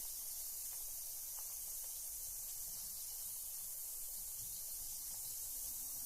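Carbonated bath tablet (bath bomb) fizzing in bathwater: a steady high hiss of gas bubbles with a few faint small pops.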